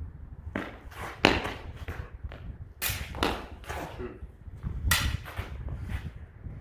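Steel HEMA sabres clashing in sparring: a series of sharp blade-on-blade contacts, the loudest about a second in, others near three and five seconds, over a steady low rumble.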